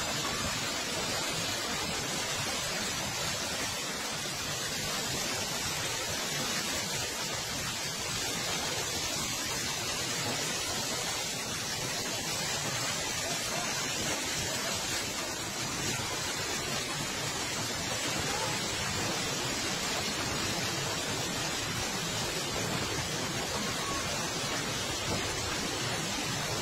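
Steady rushing noise of a fast-flowing muddy flood torrent.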